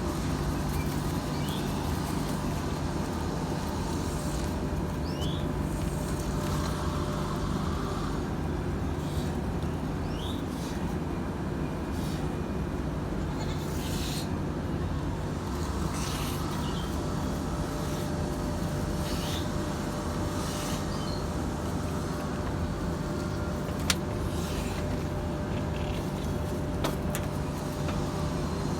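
Goats bleating now and then over a steady low hum, with a single sharp click late on.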